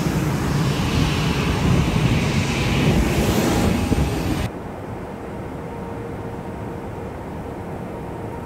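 Jet airliner's engines and rushing air heard from inside the cabin while the plane rolls along the ground. About halfway through it cuts abruptly to a quieter, steady cabin drone with a faint hum.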